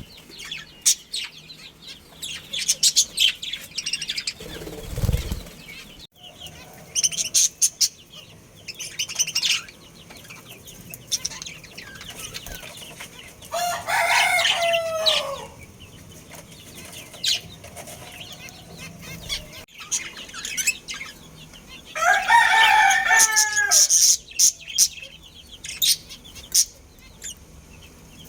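Budgies chirping in many quick, high bursts. A rooster crows twice, about 14 seconds in and again about 22 seconds in, each crow about two seconds long and falling in pitch at the end. There is a brief low rumble about five seconds in.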